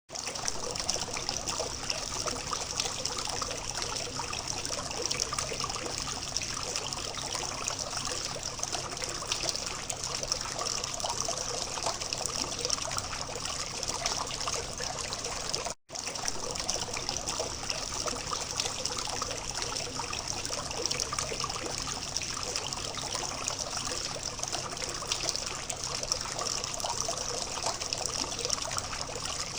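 Water from a small fountain trickling and splashing steadily. It cuts out for an instant about halfway through.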